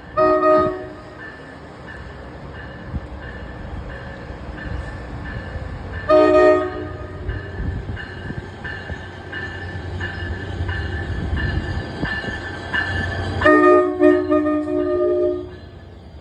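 Arriving train's horn sounds three blasts, several notes together in a chord: a short one at the start, another short one about six seconds in, and a longer, broken one near the end. Between the blasts the train's rumble grows louder as it comes in.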